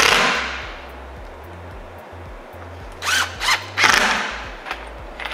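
DeWalt cordless impact driver driving screws into plywood in short bursts. One burst at the start trails off, then several more come from about three seconds in, each with a rising motor whine.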